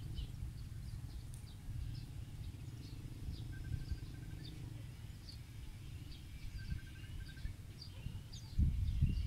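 Several birds chirping, with a quick string of evenly spaced notes twice, over a steady low rumble that swells near the end.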